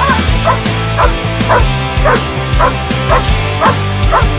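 Young German Shepherd barking steadily at the helper in the blind, about two barks a second: the guarding bark of an IGP bark-and-hold. Background music with a steady beat plays under the barking.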